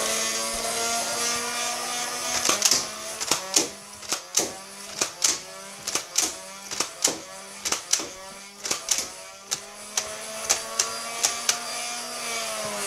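Motorized flywheel foam-dart blaster whirring, then firing a rapid string of darts at about two sharp clicks a second. The motor's whine dips with each shot and winds down near the end.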